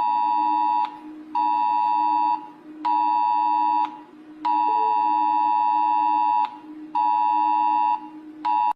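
Emergency alert attention tone: a harsh steady two-tone beep sounding in a repeating pattern of one long tone of about two seconds and two short tones of about one second, each followed by a half-second gap.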